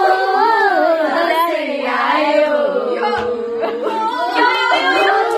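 A group of young women singing a song together without instruments, voices holding and sliding between notes, with a few hand claps in the second half.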